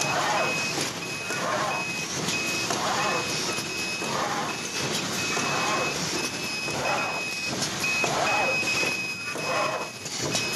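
Automatic microfiber-cloth sewing machine running through its cycle, its mechanical noise swelling about every second and a half. A high electronic tone keeps cutting in and out over it.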